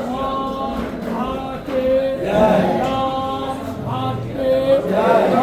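Men's voices singing a devotional chant together, the same melodic phrase returning about every two and a half seconds between long held notes.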